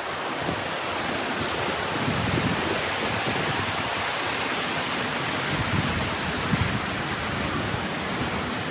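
Steady rush of a mountain stream running over rocks.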